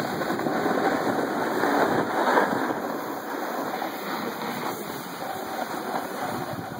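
Steady rushing, scraping noise of edges and base sliding downhill over packed, groomed snow.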